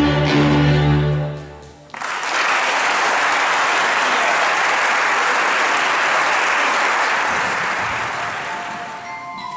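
A song's final chord from singers and saxophones, held briefly and then dying away, followed about two seconds in by an audience applauding, which slowly fades.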